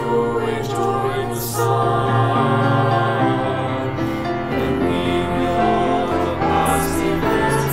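Mixed choir of men and women singing a slow hymn in English, with piano accompaniment.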